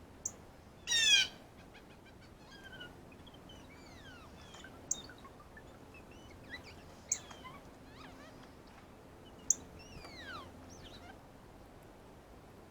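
Male northern cardinal giving its sharp, high chip notes while feeding, one every couple of seconds. A louder harsh call comes about a second in, and faint falling whistled notes sound between the chips.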